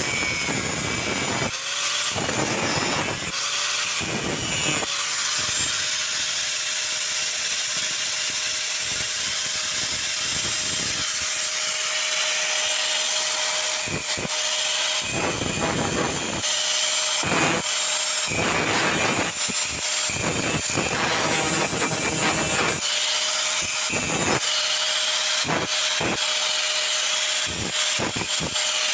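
Angle grinder running with its abrasive disc biting into steel angle iron. A steady motor whine runs under harsh grinding noise that rises and falls as the disc is pressed on and eased off.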